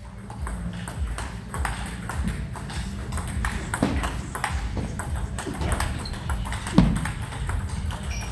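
Table tennis rally: the celluloid-type ball clicking off the bats and the table in a quick, steady rhythm during close-to-table blocking, one bat faced with Dr. Neubauer ABS 3 frictionless anti-spin rubber. One louder knock comes just before seven seconds in.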